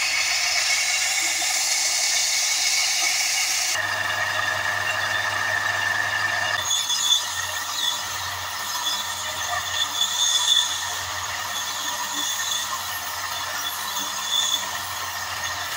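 Belt grinder running with a steel file blade held against its abrasive belt: a steady grinding rasp over a low motor hum. The sound changes abruptly about four seconds in and again about seven seconds in.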